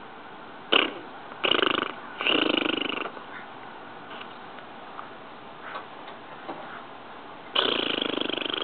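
A person making noises with his tongue: a short sharp burst, then two longer rapidly pulsing buzzy sounds in quick succession, and after a pause a longer one near the end.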